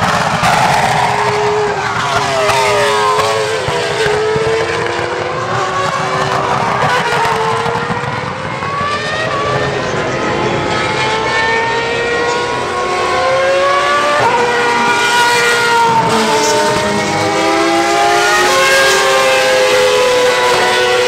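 High-revving Ferrari racing car engines, Formula 1 cars among them, running hard on track. The engine pitch rises and falls as the cars accelerate, shift gears and pass, with several engines overlapping and a sharp gear change about two-thirds of the way through.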